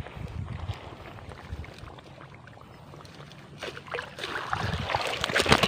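Grass and brush rustling and scraping against a body pushing through it, with low footfall thumps. The rustling grows loudest in the last two seconds.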